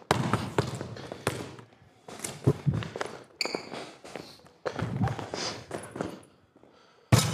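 Basketball dribbled on an indoor court, a string of bounces with a short echo off the large hall, spaced about half a second to a second apart, with a brief high squeak about halfway through.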